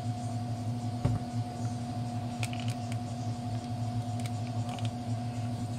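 A steady low hum with a few fixed pitches, broken by a single thump about a second in and a few faint light clicks later.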